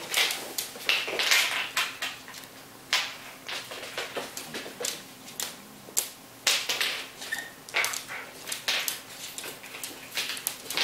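Irregular clicks and taps of claws on a wooden floor as an African grey parrot and Bengal kittens move about, with a few short breathy hissing noises among them.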